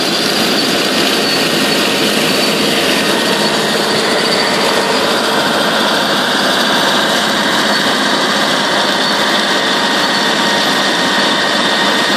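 AMAC ZM2 self-propelled onion harvester running steadily as it lifts a row of pickling onions: engine and lifting machinery at a constant pitch, with a steady whine.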